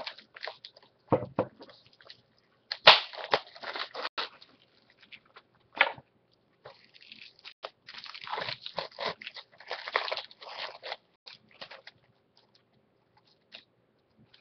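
Plastic shrink wrap being torn and peeled off a Blu-ray case, crinkling and crackling in irregular bursts that thin out to a few faint ticks near the end.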